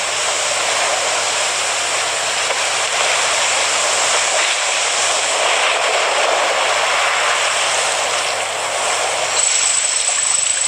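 Steady rushing noise of surf washing over a sandy beach. A thin, high, steady tone joins near the end.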